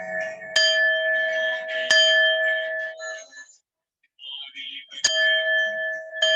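Singing bowl struck repeatedly with a mallet: each sharp strike rings on in a steady low tone with bright higher overtones. The ringing cuts off suddenly about halfway through, then a fresh strike comes about five seconds in and another near the end.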